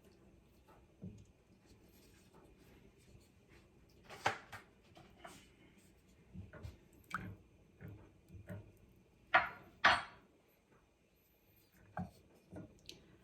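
A utensil knocking and scraping against a pot while breaking up a block of butter as it melts: scattered short knocks, the loudest one about four seconds in and two close together near ten seconds.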